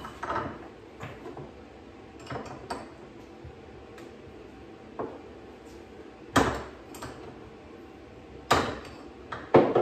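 Scattered metal clinks and knocks of tooling being handled on a workbench as a CNC mill's ER collet tool holder is worked loose to take out a half-inch end mill. Two louder knocks come past the middle, and a quick cluster near the end.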